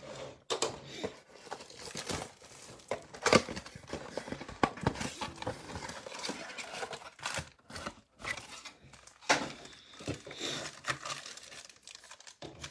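Crinkling and tearing of plastic and foil wrapping as a Panini Mosaic football trading-card mega box and its packs are handled and opened, with irregular sharp crackles and clicks throughout.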